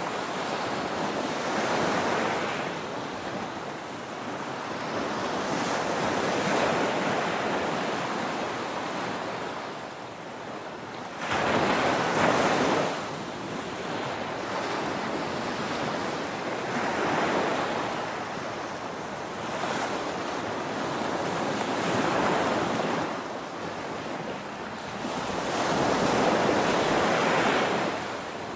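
Small ocean waves breaking and washing up a sandy beach, the surf swelling and fading every few seconds, with one stronger wave arriving sharply about a third of the way through.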